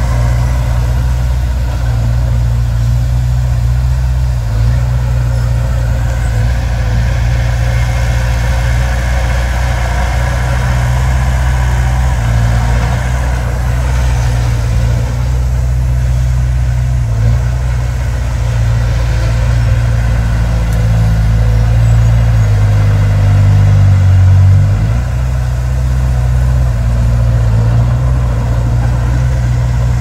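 Heavy diesel engine of earthmoving machinery running steadily, rising and getting louder for a few seconds past the two-thirds mark, as under more throttle.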